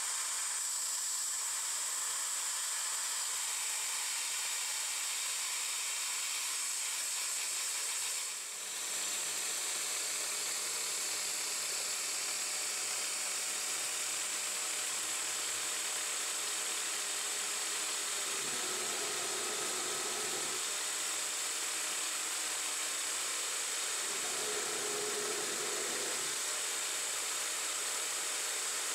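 9x20 benchtop metal lathe running under CNC control, the four-jaw chuck spinning with a steady high hiss, while the tool takes a facing cut on a steel bracket spacer. The hiss drops briefly about a third of the way in, and a lower tone comes in twice in the second half as the tool cuts.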